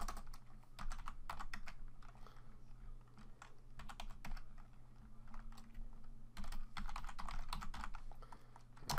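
Typing on a computer keyboard: quick runs of keystrokes with short pauses between them, over a faint steady low hum.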